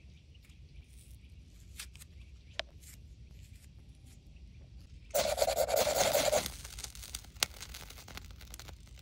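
Hands pulling apart a white fire-starter pad: light rustling and small clicks, then a loud tear lasting about a second and a half, about five seconds in, and one sharp click a couple of seconds later.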